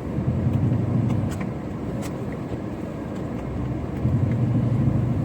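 Car driving through a snowstorm, heard from inside: a steady low rumble of engine and road noise that swells about a second in and again near the end, with a few faint ticks.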